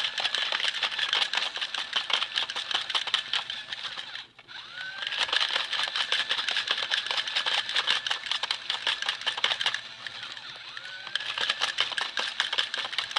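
Fast, even mechanical clicking with a whine that rises and then holds steady, like a small motor-driven mechanism running. It cuts out briefly about four seconds in, dips near ten seconds, and each time the whine rises again as it starts back up.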